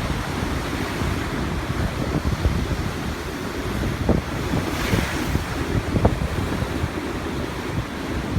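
Sea waves washing on the shore, with wind rumbling on the microphone; the hiss of a wave swells up about five seconds in.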